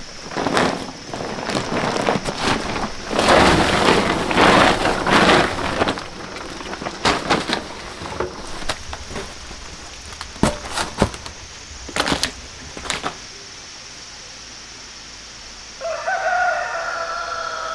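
Irregular knocking and rustling noise, loudest in a burst a few seconds in, with sharp knocks up to about 13 s. Near the end a rooster crows once.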